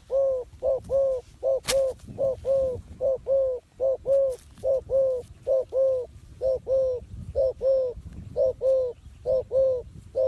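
A dove cooing steadily in quick pairs of short, hooting coos, about one pair every 0.7 seconds, with a sharp click about two seconds in.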